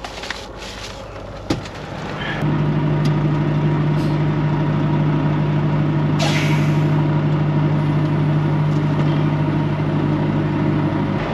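Volvo VNL 760 truck's diesel engine idling steadily, coming in loud about two seconds in, with a short hiss about six seconds in.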